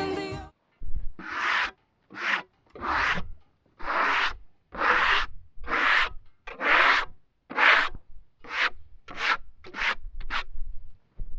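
About a dozen separate rubbing strokes on the surface of freshly sawn hickory, each under a second, getting shorter and quicker near the end.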